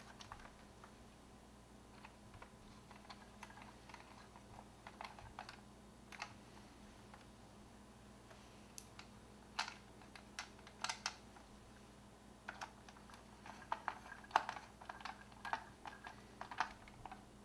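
Hard plastic parts of a 1985 Matchbox Robotech Veritech VF-1S toy clicking and tapping together as the fuselage is handled and fitted back together: faint, irregular clicks in small clusters, busiest in the second half.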